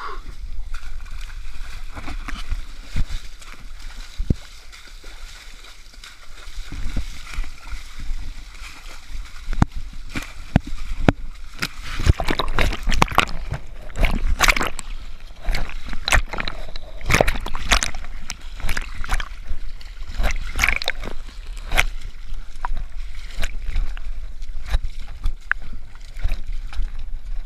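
Splashing and sloshing through muddy water and scrambling over a wet mud bank, with knocks and rubbing against the camera; the splashes and knocks come thick and loud from about twelve seconds in.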